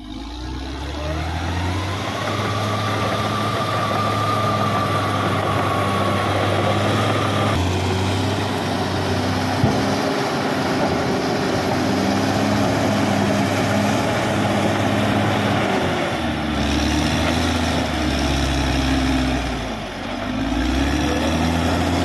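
Caterpillar D6R XL bulldozer's diesel engine running steadily as it pushes earth with its blade. A high whine rises over the engine about a second in, holds, and stops abruptly about a third of the way through; near the end the engine note sags twice and recovers.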